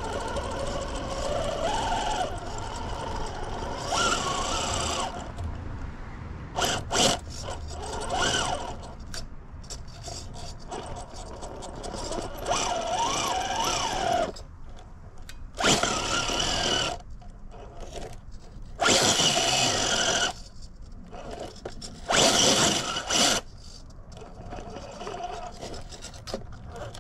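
Radio-controlled rock crawler's brushless motor and drivetrain whining in stop-start throttle bursts that rise and fall in pitch, with the tyres scrabbling and scraping on rock as it climbs. Three louder bursts of about a second each come in the second half.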